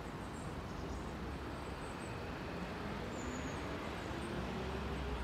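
Steady traffic noise, with one vehicle's engine rising in pitch as it speeds up over the second half, and a few faint bird chirps.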